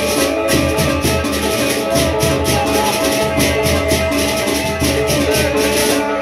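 Sasak traditional music: a bamboo flute holding a melody over a fast, even run of sharp high percussion strokes, which stop near the end.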